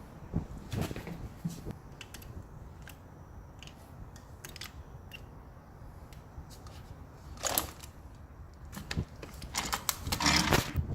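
Clicks, knocks and metal rattling from a Hudora Big Wheel kick scooter's folding joint and handlebar stem being worked by hand. There is a single knock near the start, another clatter about seven seconds later, and a quick run of clicks and rattles near the end.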